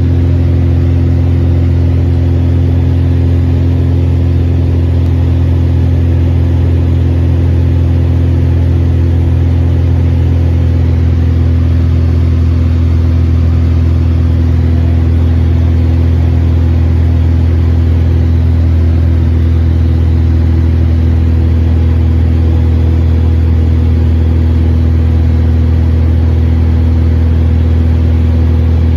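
Mooney M20E's four-cylinder Lycoming IO-360 engine and propeller droning steadily at constant power, heard from inside the cockpit.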